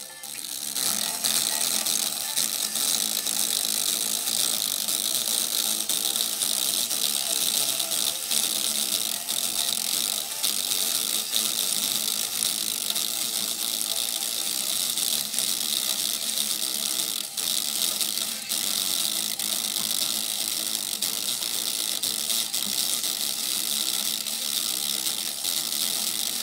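Small cheap speaker driver overdriven by an amplifier, giving a steady crackling, rattling buzz instead of clean sound, as it is pushed hard enough to blow it.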